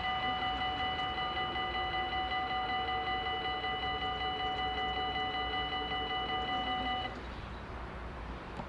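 Dutch level-crossing warning bell ringing in a rapid, even pulse, which stops abruptly about seven seconds in, leaving a faint low rumble.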